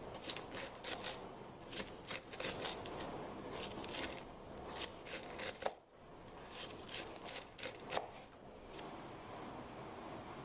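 Kitchen knife shredding red cabbage against a plastic cutting board: a quick, irregular run of crisp slicing cuts and taps, pausing briefly about halfway and stopping a couple of seconds before the end.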